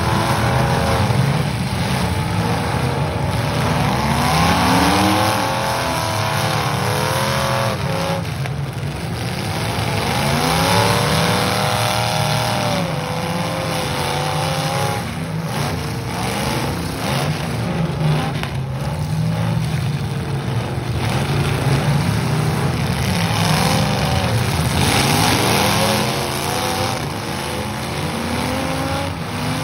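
Several demolition derby cars' engines revving up and down at once, over and over, as the cars push and ram in the pit, with a few sudden crashes of cars hitting each other.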